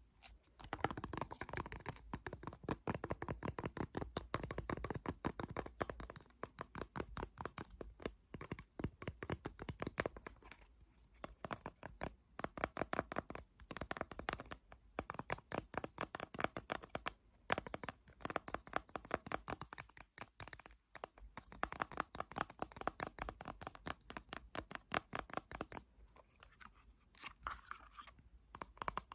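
Rapid tapping and scratching on a small object, several light taps a second in runs broken by short pauses.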